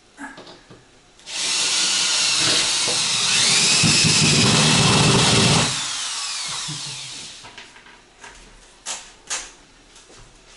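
Power drill running for about four seconds, its whine rising in pitch as it speeds up, then winding down. This is typical of a screw being driven into a ceiling board. A couple of light knocks follow near the end.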